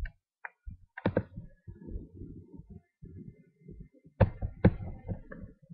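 Sharp clicks at a computer desk as buttons are clicked to save and compile: one about a second in and two close together a little after four seconds, with faint low knocking and rubbing noise between.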